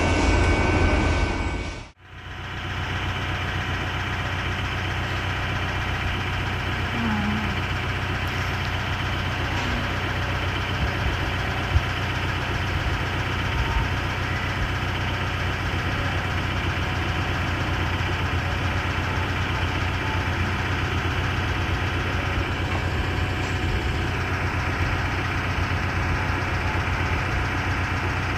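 An engine running steadily at an even level. It starts after an abrupt cut about two seconds in that ends a louder sound.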